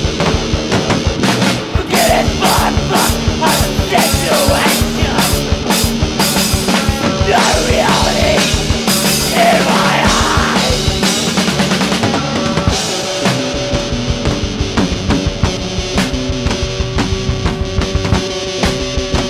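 Hardcore punk recording: a fast drum-kit beat with cymbal crashes under distorted guitar and bass. The crashes thin out about two-thirds of the way through, leaving held guitar chords over the driving drums.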